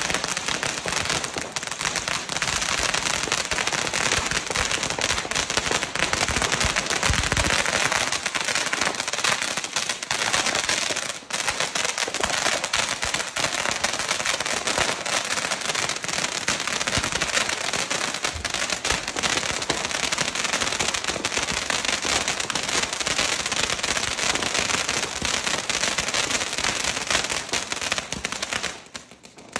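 Lonestar Fireworks 250 g crackling fountain burning, giving a dense, continuous crackle of many small pops from its crackling stars. It dips briefly about eleven seconds in and dies away shortly before the end.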